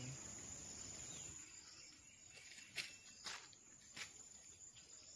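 Faint outdoor ambience, a low even hiss, with three short sharp clicks in the middle, roughly half a second to a second apart.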